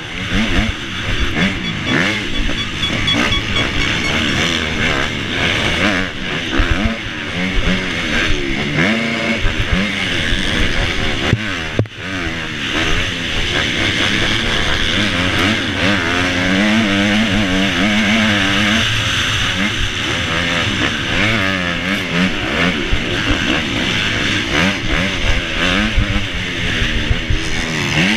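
Honda 250 four-stroke motocross bike racing, heard from the rider's helmet: the engine revs up and down repeatedly through the gears with wind rushing over the microphone. About twelve seconds in the engine sound drops out for a moment, then picks up again.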